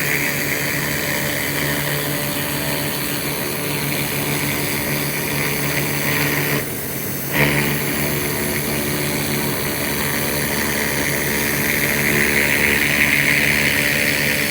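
Laser rust-removal machine running steadily over a constant electrical hum. Its hissing output cuts out for under a second about halfway through, then starts again.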